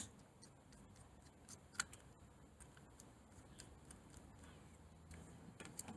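Near silence with scattered faint clicks and ticks of a screwdriver working the terminal screw of a plastic plug, a sharper click about two seconds in and another near the end.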